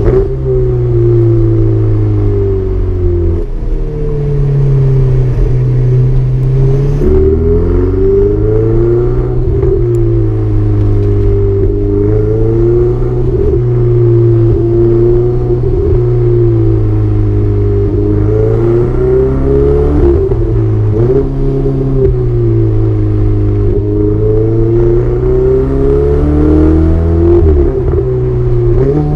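Ferrari 488 Spider's twin-turbo V8 engine and exhaust under hard driving, the pitch repeatedly rising and falling as it revs up and changes gear.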